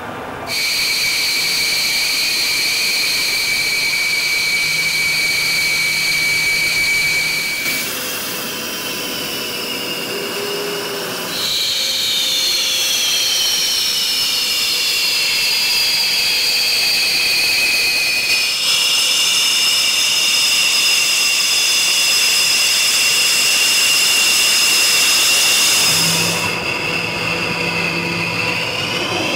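High-pitched turbine whine and hiss of a Sukhoi Su-34's twin jet engines as the jet taxis. The whine holds several tones that drift slowly in pitch, and it changes abruptly a few times.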